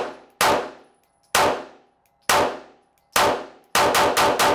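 FN 509 9mm pistol being fired during a live-fire test of its fitted trigger spring kit, about eight shots. Four shots come about a second apart, then a rapid string of four near the end, each with a short ringing tail off the range walls.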